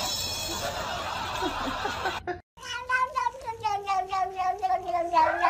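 A domestic cat's long, drawn-out caterwaul: a wavering yowl that slowly sinks in pitch. It follows a couple of seconds of hissing noise and a short break.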